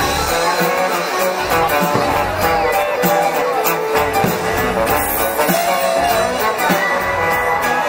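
Soundtrack music of a castle fireworks and projection show, playing steadily with sustained melody lines.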